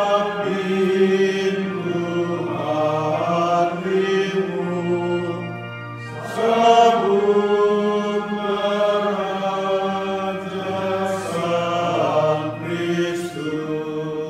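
Catholic responsorial psalm being sung: a chant-like melody with long held notes over a steady low accompaniment.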